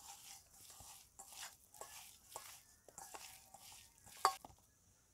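Hands mixing and squeezing spice-coated raw chicken pieces with tomato sauce in a stainless steel bowl: soft, irregular wet mixing strokes with a few light clicks against the bowl, one louder a little past four seconds in.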